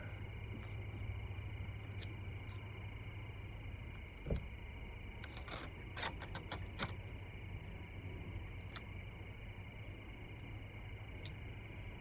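Steady low background hum with a low knock, then a quick cluster of short sharp clicks and crackles near the middle, from tape and vinyl being handled on the truck's side.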